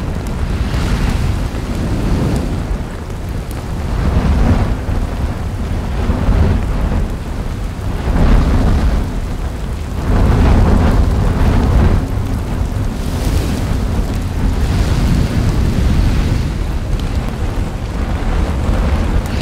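Lava fountaining in an erupting volcanic crater: a deep, continuous rumble that swells and eases every couple of seconds, with a hiss of spatter rising in the louder surges.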